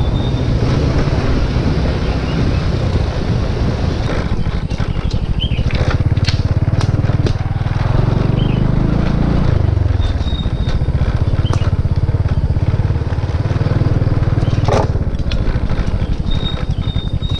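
Motorcycle engine running while riding over a bumpy dirt track, with the revs swelling and then dropping about nine seconds in. Scattered knocks and rattles come from the rough ground.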